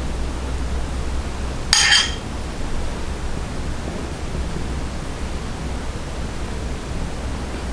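A steady hiss with a low hum runs throughout. About two seconds in, one short, bright clink rings out, like kitchenware knocking together.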